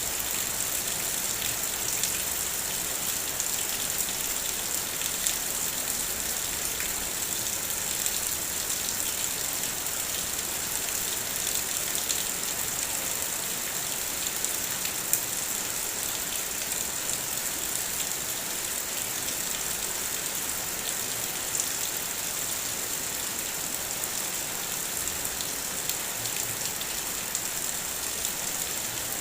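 Steady rain falling: an even hiss with scattered small ticks of drops striking.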